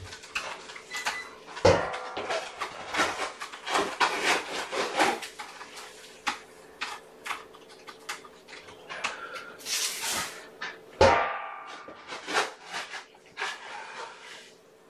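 Rustling and clattering of things being handled, with two loud knocks that ring briefly, about two seconds in and again near eleven seconds.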